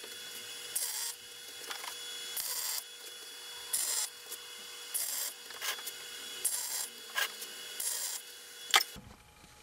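Electric arc welding crackling and spitting in short bursts about once a second, as a square steel burner holder is tack-welded onto a small steel gas bottle.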